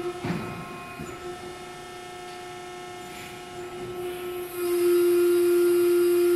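Hydraulic power unit of a 242-ton CNC press brake running with a steady whine. Just after the start it drops to a quieter hum with a clunk, and another clunk follows about a second in. About two-thirds of the way through it swells back to the louder whine.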